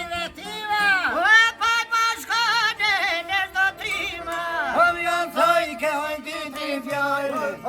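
Traditional Albanian folk music: a heavily ornamented melody with quick dips and turns in pitch, over steadier low accompanying notes.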